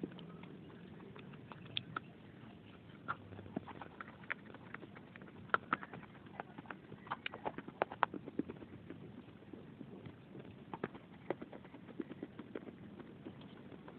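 Baked red clay being bitten and chewed: irregular sharp crunches and cracks, coming thickest in the middle of the stretch.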